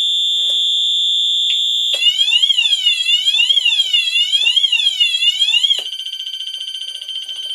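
Wheelock fire alarm sounding loudly. It begins as a steady high-pitched tone, switches about two seconds in to a sweeping tone that rises and falls about twice a second, and near the end changes to a lower, buzzier steady tone.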